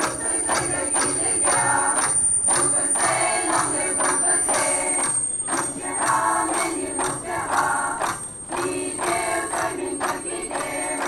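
Bamboo dance: a group of women's voices chanting in a steady rhythm, with bamboo poles clacking together in time.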